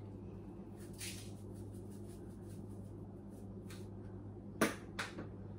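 Plastic spice containers being handled, with a short shaken swish about a second in and two sharp clicks near the end as a lid snaps shut or a bottle is set down, over a steady low electrical hum.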